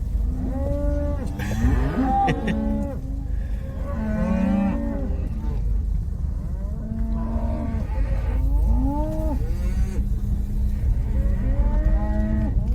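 A herd of cattle mooing, many calls overlapping one after another, over a steady low rumble.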